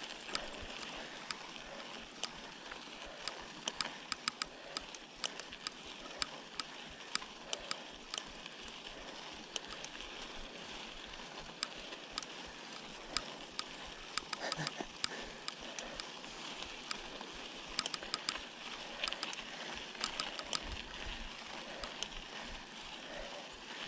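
Mountain bike rolling down a dirt fire road: a steady rush of tyres on dirt, with frequent, irregular sharp clicks and rattles.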